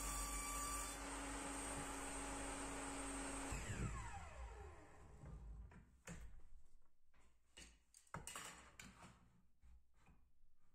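Table saw running as a cut through a thin wooden panel finishes about a second in, then switched off about three and a half seconds in, its motor whine falling steadily as the blade spins down. Several light knocks and clicks follow as pieces are handled on the saw table.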